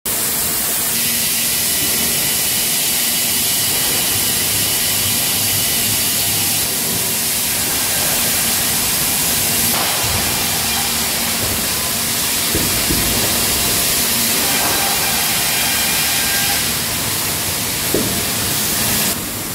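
Circular-saw edger (refiladeira) with automatic outfeed running: a steady, loud hiss of machinery, with a few short knocks as boards pass through the feed rollers near the end.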